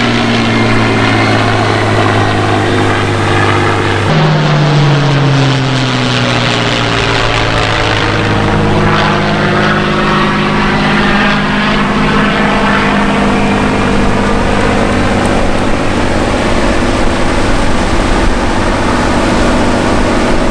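Military aircraft passing overhead: an A-10 Thunderbolt II, flying with a P-51 Mustang, gives a loud, steady low engine drone with rippling sweeps in the rushing noise above it. About four seconds in the sound changes abruptly, and the drone slides down in pitch as the aircraft pass, then holds steady.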